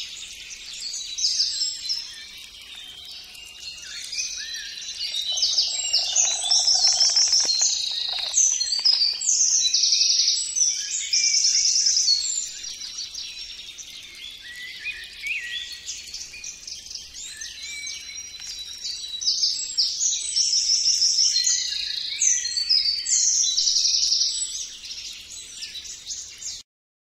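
Several songbirds singing at once, with dense, overlapping chirps and trills; the birdsong stops abruptly near the end.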